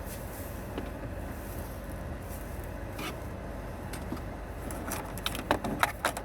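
Plastic clicks and taps as a trim tool and fingers work at the AC vent's retaining tabs in the dashboard, a quick cluster of sharp clicks near the end, over a steady low rumble.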